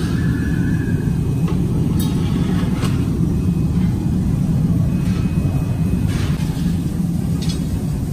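Steady low roar of the glass furnaces in a hot-glass workshop, with a few light clicks from tools and movement.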